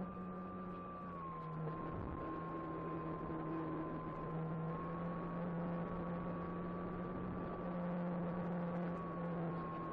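Electric motor and propeller of an E-flite Apprentice 15e RC trainer airplane in flight: a steady high whine over a deeper hum, its pitch dipping slightly about a second in and drifting a little after that.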